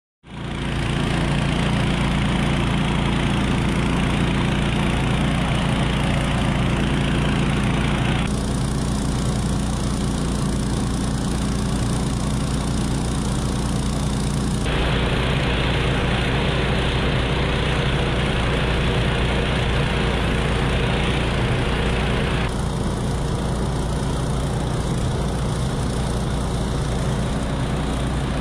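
A vehicle engine running steadily, its tone and noise changing abruptly about 8, 15 and 22 seconds in.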